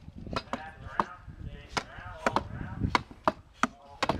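Steel axe chopping into a standing wooden block in an underhand chop, sharp cracking strikes, about two or three a second at an uneven pace.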